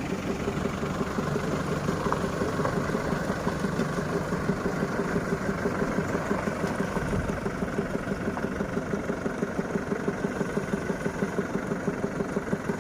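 Heavy diesel engine running steadily at idle, with an even pulsing throb.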